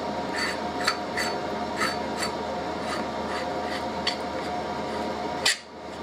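Light metal clicks and taps from a hydraulic cable crimper's parts being handled and fitted back together with a hand tool, scattered at about one or two a second, over a steady droning hum. One sharper click comes near the end.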